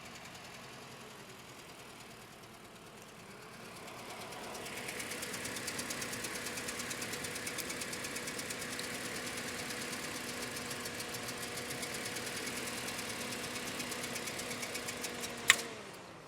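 Toyota Scion four-cylinder engine idling rough with a misfire, with a fast, even ticking that gets louder about four seconds in. Near the end a single sharp snap is heard, and the engine then winds down and stops.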